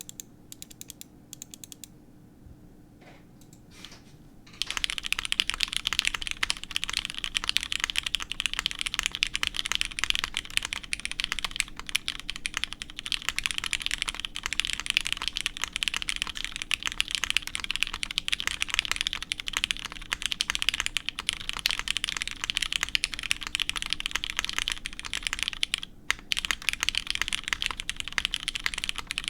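Typing on a Kei 60% mechanical keyboard with lubed Cherry MX Hyperglide Black linear switches, an aluminium half plate and GMK keycaps. A few scattered keystrokes come first, then steady fast typing from about four and a half seconds in, with a brief pause near the end.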